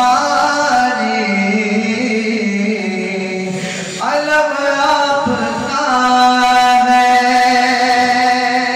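A man singing a naat (Urdu devotional song) unaccompanied into a hand-held microphone, amplified. Long, ornamented held notes, with a short break for breath about four seconds in before the next phrase.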